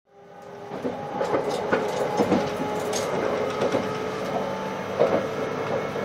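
Inside a JR West 681 series limited express electric train on the move: a steady hum with a tone running through it and irregular knocks and clicks from the wheels over the track. The sound fades in over the first second.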